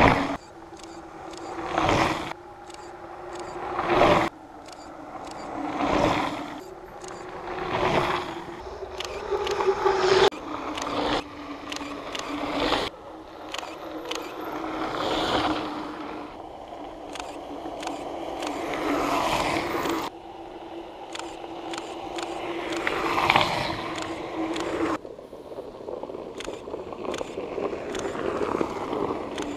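Mountain bikes passing close one after another on a dirt-and-gravel descent, their tyres crunching over the loose surface. Each pass swells and fades, about every two seconds at first, then the passes run together into a more continuous, uneven noise.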